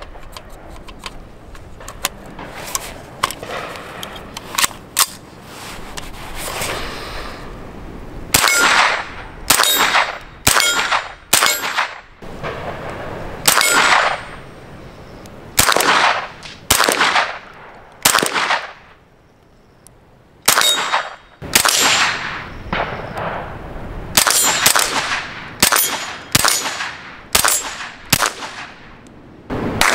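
Suppressed .22 LR CZ Scorpion carbine fired semi-automatically, about twenty single shots at irregular intervals of half a second to two seconds, each met by the clang and ring of a hit on steel plate targets. A few light sharp clicks come before the shooting starts.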